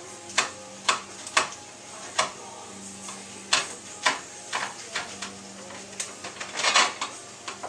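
Kitchen knife cutting fresh pineapple into chunks on a cutting board: irregular sharp knocks of the blade hitting the board, mostly half a second to a second apart, with a longer scraping sound near the end.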